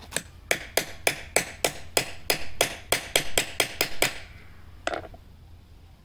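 A claw hammer strikes the top of a hammer crimper about fifteen times in quick succession, roughly three or four metal blows a second, driving the crimping die down onto a copper lug on 2/0 cable. The blows stop about four seconds in, and one last knock follows about a second later.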